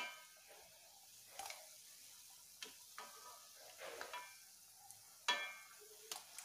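Cauliflower vadais sizzling faintly as they deep-fry in oil in a kadai. A slotted metal spatula clinks sharply against the pan at the start and again about five seconds in, with lighter ticks in between.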